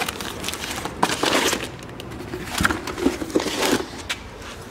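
Packaging being handled: plastic shrink wrap crinkling and cardboard boxes rustling, with scattered knocks.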